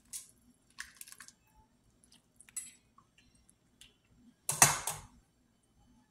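Metal ladle clinking against a ceramic soup bowl as soup is served: a few light taps, then a louder cluster of clinks about four and a half seconds in.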